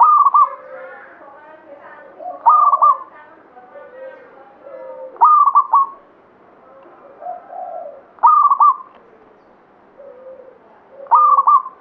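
Zebra dove (perkutut) cooing: five loud, short trilled phrases about three seconds apart, with softer, lower notes between them.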